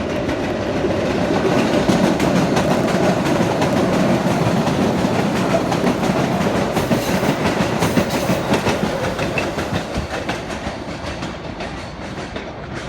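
MBTA Blue Line rapid-transit train running past at speed, its wheels knocking over the rail joints. It grows louder over the first couple of seconds, then slowly fades as it moves away.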